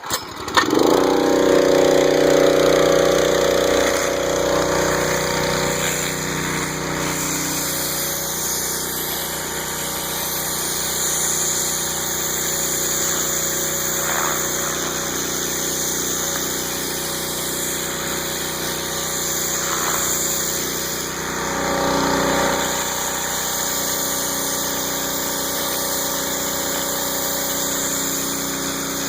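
Northstar pressure washer's 9 hp Honda GX engine catching just after the start, then running steadily at a constant speed, with a brief swell in level about 22 seconds in.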